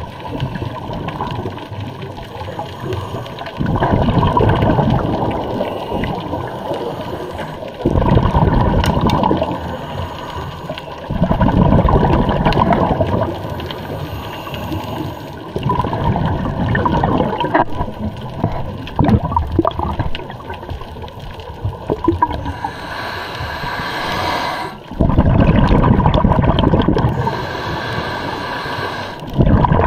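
Scuba regulator exhalations heard through an underwater camera: a burst of bubbling every few seconds, each lasting two to three seconds, with quieter water noise between.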